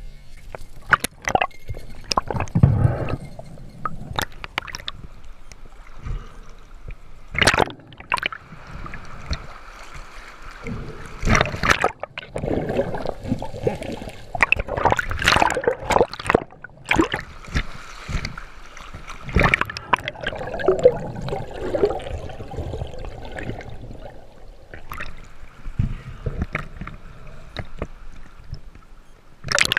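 Fast, shallow river water gurgling and sloshing, broken by many sharp knocks and splashes.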